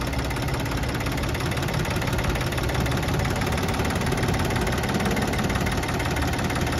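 Ford 1710 compact tractor's three-cylinder diesel engine idling steadily.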